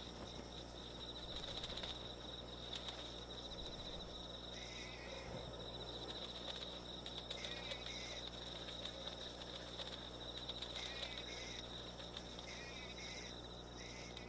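Night ambience of chirping insects: a steady high warbling trill, with a shorter chirp every couple of seconds.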